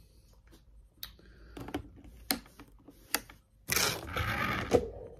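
A few sharp plastic clicks and taps as the rear doors of a plastic toy RC van are worked open by hand, then a louder rustling scrape of handling for about a second near the end.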